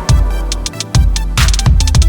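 Electronic music with a heavy bass line and a steady, punchy drum beat.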